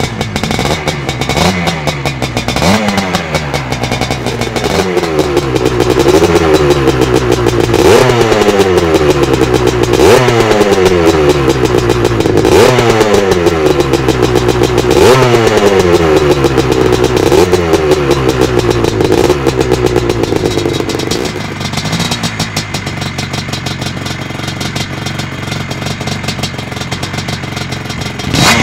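Vintage Husqvarna 250 two-stroke dirt bike engine running and being blipped over and over, each rev rising and dropping back about every two seconds. It then settles to a steady idle for the last several seconds.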